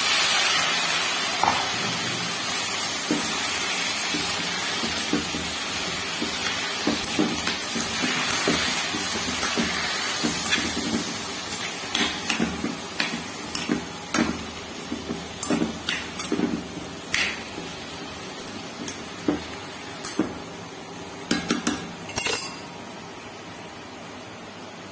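Raw chicken pieces hitting hot oil and onions in a frying pan and sizzling, the sizzle starting suddenly and slowly dying down. A spatula stirs them, clacking and scraping against the pan, with the sharpest knocks near the end.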